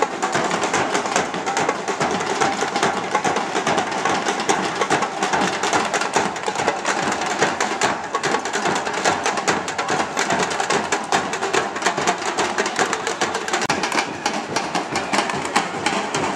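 Street parade drum band drumming, a dense run of hits over the steady noise of a large crowd.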